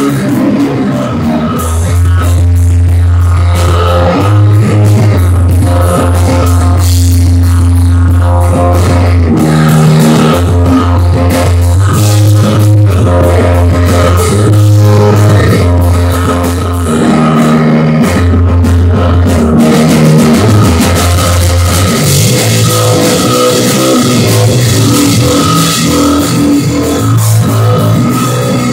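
Loud live instrumental rock from a three-piece band: drum kit, electric bass and electric guitar played through amplifiers, with long held bass notes changing every second or two. The cymbals grow louder about two-thirds of the way through.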